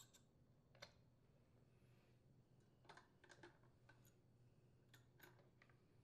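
Near silence with a few faint, scattered metallic clicks as a hedge trimmer's clutch is spun by hand onto the engine shaft and a wrench is set on it to tighten.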